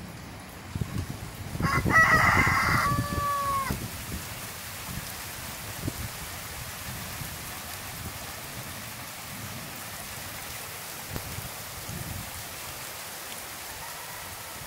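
Steady rain falling, with a rooster crowing once, about two seconds long, starting near two seconds in.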